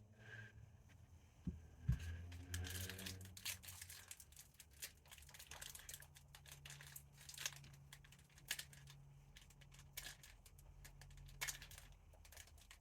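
Faint crinkling and tearing of a foil Pokémon TCG booster pack wrapper being worked open by hand, with scattered sharp crackles as the pack resists opening.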